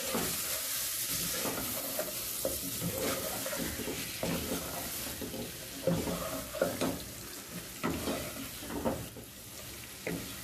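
Chicken pieces and masala sizzling in hot oil in a metal pot while being stirred and sautéed (bhuna) with a plastic spatula, the spatula scraping and knocking against the pot at irregular moments, with two sharper knocks about six seconds in.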